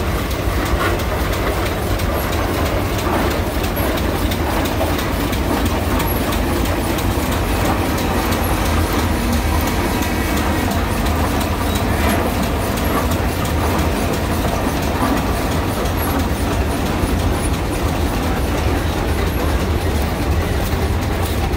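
Steel tracks of vintage crawler tractors clanking steadily as they roll past, over a low, constant engine rumble.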